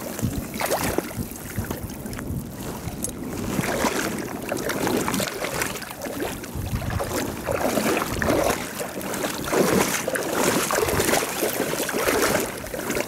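A hooked black sea bream thrashing and splashing at the surface as it is drawn through the shallows, in irregular splashes, with wind noise on the microphone.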